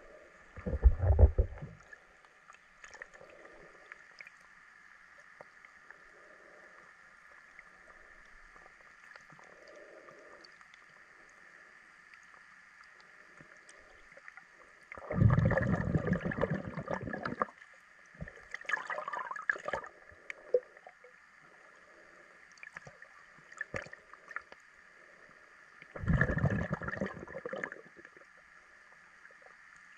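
Muffled underwater sound heard through a waterproof camera case: a faint steady hum with soft low pulses, broken by a few loud rushing surges, about a second in, twice around the middle and again near the end.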